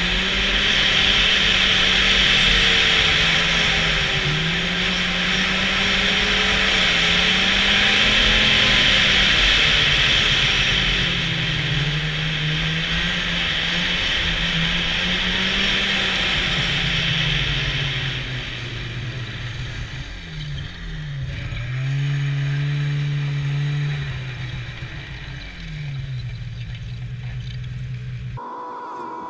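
Snowmobile engine running under way, its pitch rising and falling with the throttle under a strong hiss. The hiss fades about two-thirds of the way through, and the engine settles lower with a couple of brief dips. Near the end the sound cuts off abruptly to a low hum.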